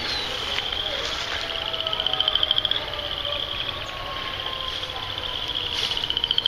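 Insects trilling: a rapid, even pulsing buzz that swells louder twice, about two seconds in and again near the end.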